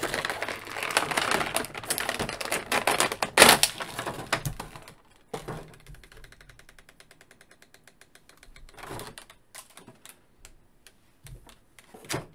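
Stiff plastic packaging crinkling and clicking as an action figure and its accessories are handled out of the tray. It is loudest in the first five seconds, then gives way to a run of fast, light, even ticks and a few scattered clicks.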